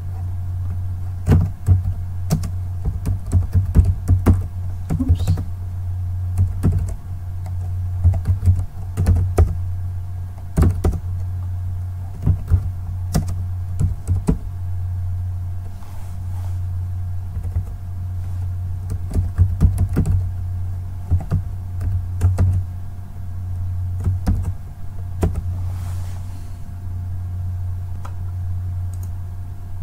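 Computer keyboard typing in irregular bursts of keystrokes, over a steady low hum.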